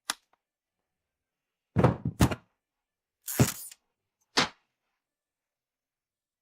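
Cartoon foley sound effects of objects being handled: a light click, then a quick cluster of heavy thumps about two seconds in, a longer clattering knock about a second later, and a single knock near the middle, with dead silence between them.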